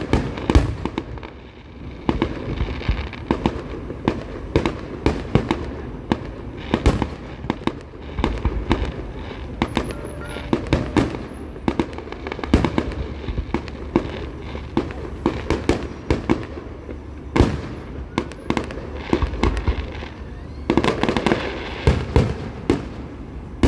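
Fireworks display: shells bursting in a rapid, irregular barrage of bangs with no let-up.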